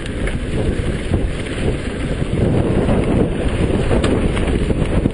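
Wind buffeting the microphone of a camera riding on a mountain bike downhill, a loud, gusty low rumble with no tones in it, and a couple of faint knocks from the bike over the trail.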